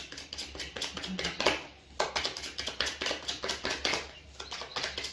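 A deck of oracle cards being shuffled by hand: a rapid, irregular run of soft card flicks and clicks with two brief lulls.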